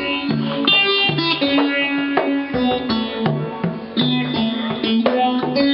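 Steel-string acoustic guitar playing a run of plucked notes that ring on over each other.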